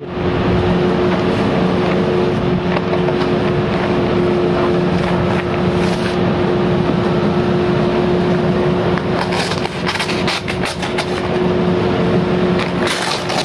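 A steady machine hum with a constant low tone, with crackly crinkling of plastic packaging being handled about nine to eleven seconds in and again near the end.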